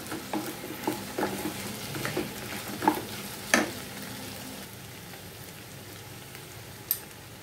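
Wooden spatula stirring and scraping dry Bombay duck, onion, potato, tomato and green chillies in a hot oiled pan, over a sizzle of frying. The stirring knocks stop about three and a half seconds in, leaving a steady sizzle.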